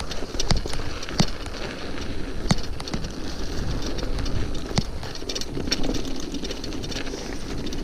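Mountain bike rolling along a snowy, frozen dirt trail: steady tyre and riding noise with a low rumble, broken by scattered sharp clicks and knocks as the bike rattles over bumps.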